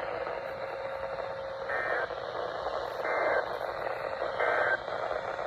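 Three short digital data bursts, each under half a second and spaced a little over a second apart, over steady radio hiss: the EAS end-of-message code that closes a broadcast weather warning.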